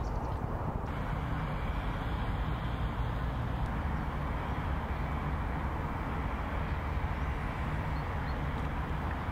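Steady outdoor background noise, heaviest in the low end, with no distinct events standing out.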